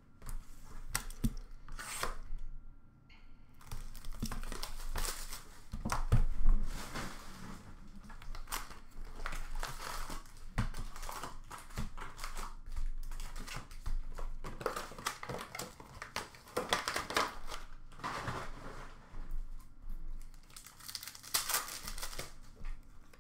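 Upper Deck hockey card pack wrappers crinkling and tearing as packs are ripped open and the cards handled, in a continuous irregular rustle, loudest about six seconds in.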